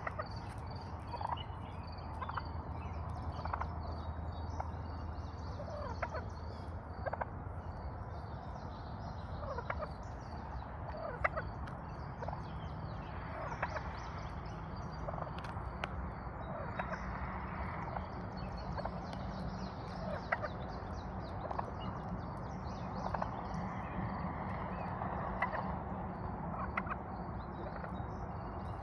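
Poultry calling: many short clucking calls scattered through, over a steady low hum.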